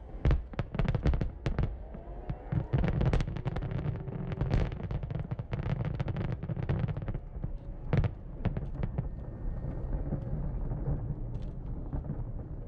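Aerial firework shells bursting in rapid, overlapping volleys, thinning out to a few scattered bangs over the last few seconds.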